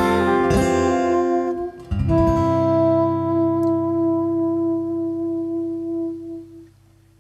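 Acoustic guitar and soprano saxophone playing the closing bars of a song: a few guitar strums, then about two seconds in a final chord under one long held saxophone note that stops about six and a half seconds in.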